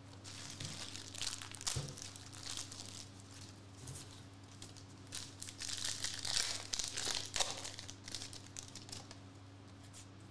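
Foil trading-card pack being torn open and crinkled by hand: a run of irregular crackling rips, loudest about six to seven seconds in.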